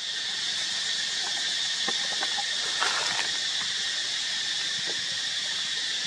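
Steady high-pitched outdoor background hiss, with a few faint short sounds around two to three seconds in.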